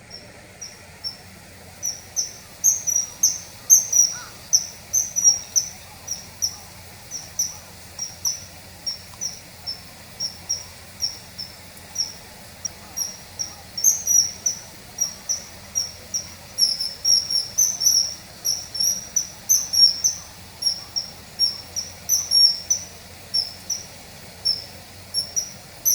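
Common kingfisher calling: a long series of short, high, thin whistled notes, about two a second.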